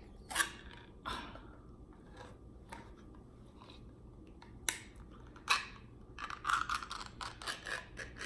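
Ring-pull lid of a small tuna can being worked open: a few separate sharp metal clicks, then, about six seconds in, a quick run of crackling clicks as the lid tears back around the rim.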